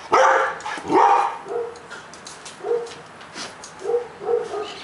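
Airedale Terriers barking and yipping excitedly while they wait to be fed. Two loud barks come in the first second or so, then shorter, softer yips follow through the rest.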